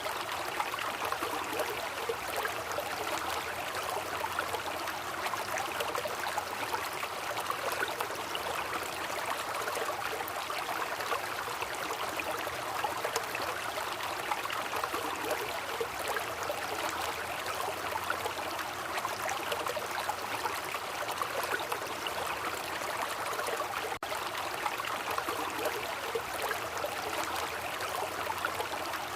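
Waterfall: a steady rush and splash of falling water, even and unbroken.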